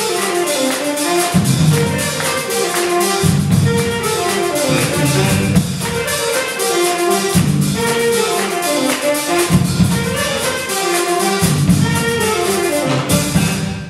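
High school jazz big band playing live: saxophones and trumpets over a drum kit and rhythm section, in a steady groove.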